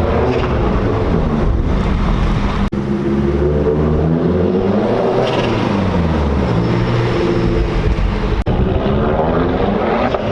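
Mazdaspeed's turbocharged 2.3-litre four-cylinder engine running under load while driving, its pitch falling and then climbing again a few seconds in, with the blow-off valve blocked off. The engine note cuts out for an instant twice.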